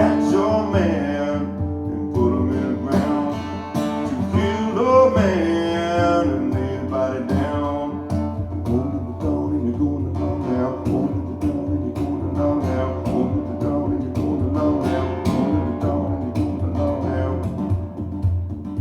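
A live guitar-led song passage, with strings played and plucked and no words sung.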